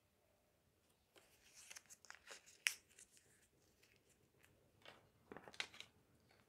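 A small paper slip being folded by hand: faint crinkling and creasing rustles in two short spells, the second near the end.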